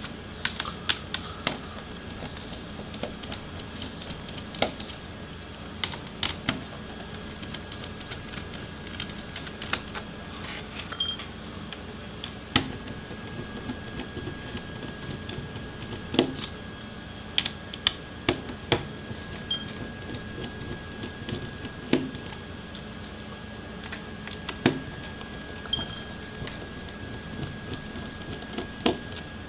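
Scattered small clicks and taps of a screwdriver turning out the metal hinge screws of an HP Omen 15t-ax200 laptop, with a few brief metallic rings.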